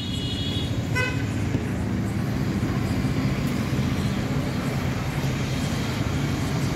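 LPG dispenser pump running steadily while filling a car's gas tank, a low, even hum. A short high-pitched tone sounds at the start and again briefly about a second in.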